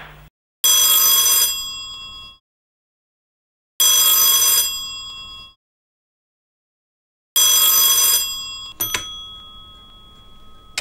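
Old rotary-dial desk telephone's bell ringing three times, each ring about a second long and dying away, with silence between the rings. A sharp clack follows the third ring as the handset is lifted off its cradle.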